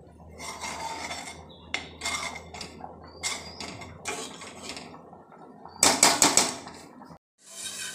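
A spoon scraping and clinking against the inside of an aluminium pot of thickened milk as it is stirred, in separate strokes with a quick run of loud clinks about six seconds in. The sound cuts out briefly near the end and a steady hiss follows.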